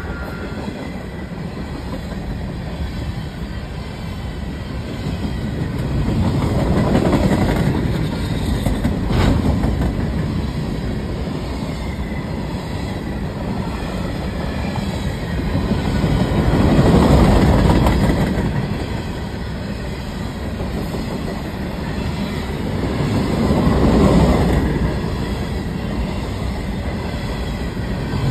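Covered hopper cars of a Canadian Pacific freight train rolling past close by: a steady rumble of steel wheels on the rails with clickety-clack over the joints. It swells louder several times as the cars go by.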